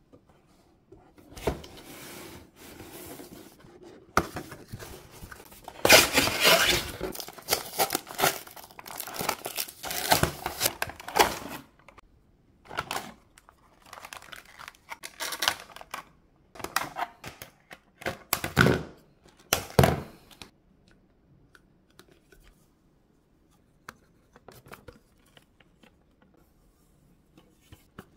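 Toy window-box packaging being torn and crinkled open by hand: irregular rips and rustles of cardboard and plastic wrap, loudest about six and ten seconds in. Near the end only a few faint clicks of plastic toys being handled.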